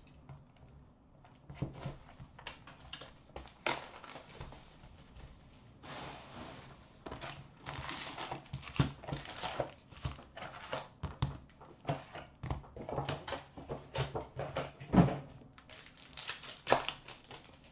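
Crinkling of plastic shrink wrap being slit and pulled off a trading-card box, then rustling and light tapping as the cardboard lid is opened and the foil card packs are handled. The sound is irregular: scattered clicks with stretches of rustle, the longest a little past the middle.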